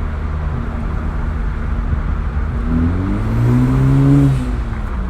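2018 Honda Civic Hatchback Sport's turbocharged 1.5-litre four-cylinder engine, heard from inside the car, running steadily, then rising in pitch and loudness under acceleration from a little under three seconds in, and dropping back about a second and a half later.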